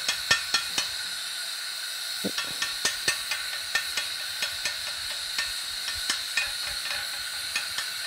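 Kesra flatbread being pricked and poked on a hot griddle pan with a small utensil: irregular sharp taps and ticks, a few per second, over a steady hiss.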